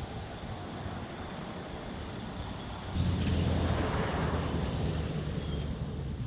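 A lithium polymer RC battery venting, with a sharp crack about three seconds in and then a loud hissing rush as a cell flares up, fading over the next couple of seconds over a steady rushing background.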